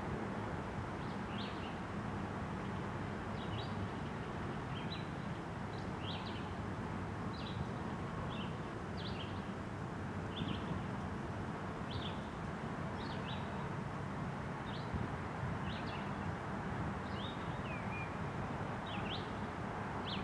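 Freight train of loaded trash containers rolling steadily past: an even rumble of wheels on rail. A bird chirps over it in short high notes, about once a second.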